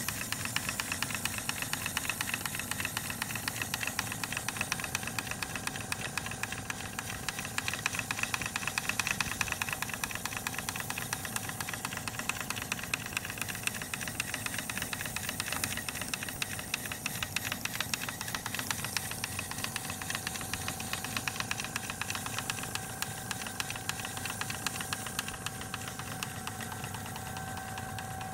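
Bassett-Lowke model Burrell traction engine running fast, its piston, crosshead and crank making a rapid, even clatter over a steady hiss of exhaust. It gets a little quieter over the last third.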